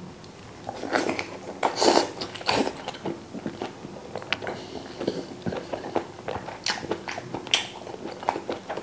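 A person biting into and chewing mouthfuls of homemade pork sausage meat soaked in chili-vinegar water, with wet, irregular smacking mouth sounds up close.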